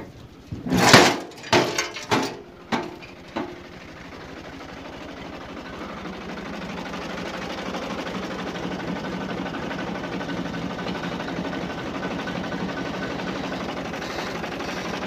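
A few loud clattering knocks in the first three seconds or so, then a Türk Fiat tractor's diesel engine idling steadily, growing louder until about eight seconds in and then holding.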